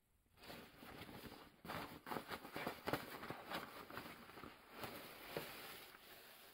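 Thin plastic bags crinkling and rustling while groceries are handled and lifted out of a cloth shopping bag, starting about half a second in as a dense crackle.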